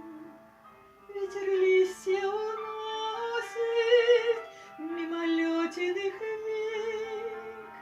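A woman singing a Russian romance in long held notes with vibrato, over a soft instrumental accompaniment.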